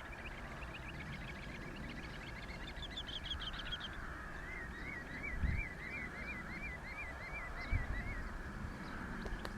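Birds calling outdoors: a fast run of short whistled notes, then a series of about eleven rising-and-falling whistled notes at roughly three a second, over a faint steady high tone. A couple of low thumps come in the middle.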